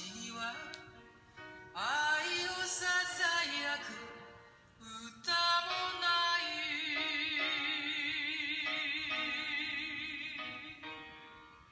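A sung ballad leaking from open-back HiFiMAN HE-1000 headphones: female singing over accompaniment, with one long note held with wide vibrato from about six to ten seconds in, then fading away.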